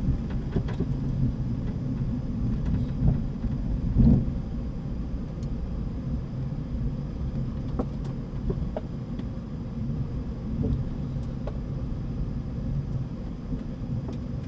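Flight-deck noise of a Boeing 717 taxiing onto the runway: a steady low rumble from the engines at taxi power and the wheels rolling on the pavement, with a few light knocks and a heavier thump about four seconds in.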